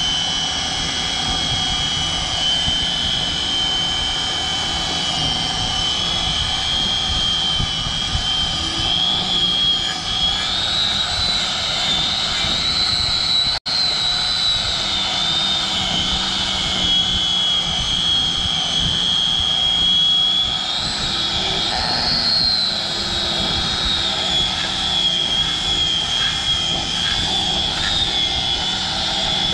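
Angle grinder fitted with a tire-shaving disc cutting rubber from a tractor tire's lugs: a steady high whine whose pitch wanders and rises twice, around ten and twenty-one seconds in. The sound cuts out for an instant about fourteen seconds in.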